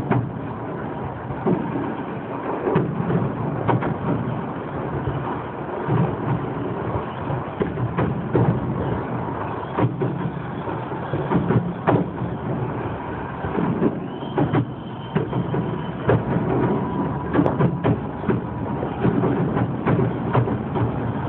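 Fireworks display: a dense run of firework bangs and crackling reports over a continuous low rumble, with sharp peaks throughout.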